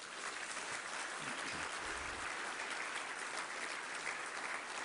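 Audience applauding, a steady wash of many people clapping.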